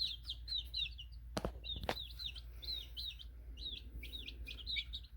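Baby chicks (lavender Orpingtons) peeping continuously: a run of short, high chirps that each fall in pitch, several a second. Two sharp knocks come about a second and a half in, half a second apart.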